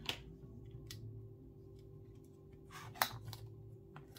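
A few light clicks and taps from small parts being handled on a repair bench: one just after the start, a cluster about three seconds in, and another near the end. A steady low hum runs underneath.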